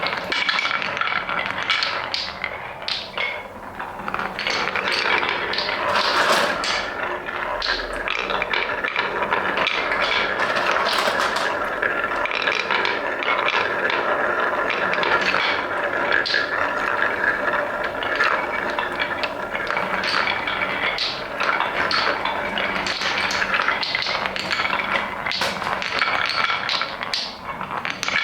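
Wooden balls rolling and clattering down a wooden marble run: a continuous run of rolling, small knocks and clicks as many balls move along the track at once.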